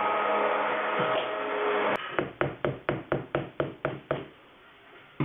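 Stick blender whirring in the conditioner mix, cutting off abruptly about two seconds in, followed by a quick run of about nine knocks, roughly four a second, and one more near the end.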